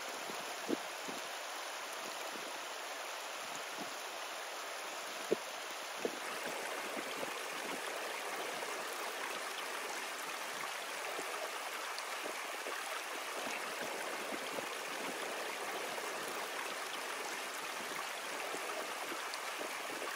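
Shallow mountain stream rushing and splashing over rocks, a steady, even sound, with a few faint clicks in the first six seconds.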